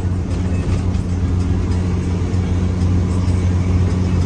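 Truck engine running steadily under way, heard from inside the cab as a low, even drone that grows slightly louder.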